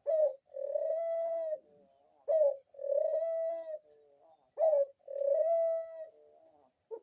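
Pet dove cooing in three repeated phrases, each a short sharp note, then a long steady coo, then a low fading tail. It cuts off suddenly right at the end.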